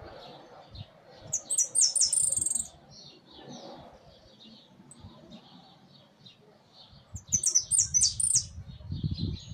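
Saffron finch chirping: two loud bursts of quick, very high notes, each about a second long, around two seconds in and again near the end, over steady faint chattering chirps. A low rumble comes in near the end.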